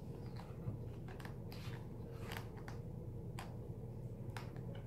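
Faint, scattered small clicks and rustles of handling as a laptop's display cable connector is pressed back into the socket on the LCD panel, over a steady low hum.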